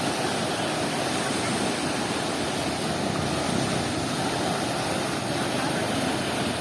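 Big waves on a river, a steady rush of churning, breaking water.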